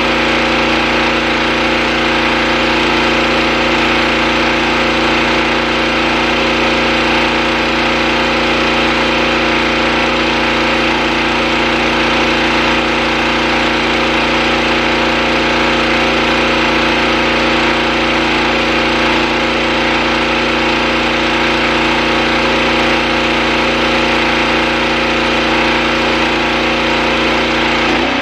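Pressure washer engine running steadily at one constant speed, with a steady hiss of spray from the rotary surface cleaner working the concrete.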